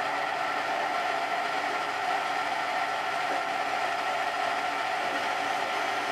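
Metal lathe running steadily while its cutting tool faces the end of a brass workpiece: an even mechanical drone of motor and gear train with several steady tones.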